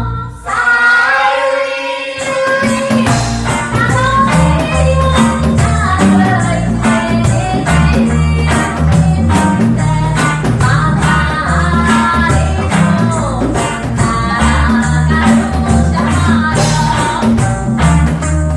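Live reggae band playing, with a singer's melody over a steady bass line and even percussion strokes. The bass and drums drop out for about the first two seconds, leaving the voice, then the full band comes back in.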